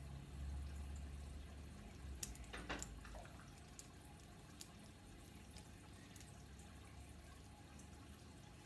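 Faint handling of a plastic Bakugan toy figure: a quick cluster of small clicks about two to three seconds in, then a few isolated clicks, as its parts are moved and snapped closed.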